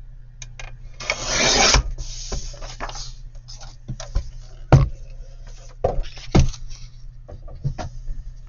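Paper being handled and worked on a craft surface: a scraping rub about a second in, then rustling and several sharp taps and knocks.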